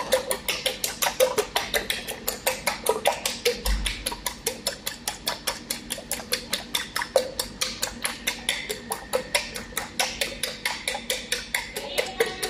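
A metal fork beating eggs in a ceramic bowl, clicking against the bowl in a steady fast rhythm of about six strokes a second.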